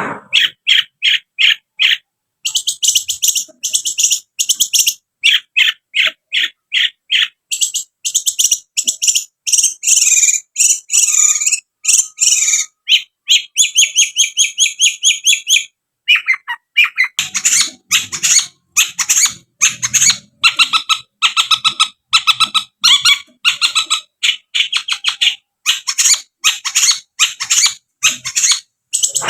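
Long-tailed shrike (cendet) singing in fast trains of sharp, high repeated notes, about three or four a second, broken by a more warbled chattering passage near the middle and a brief pause a little past halfway.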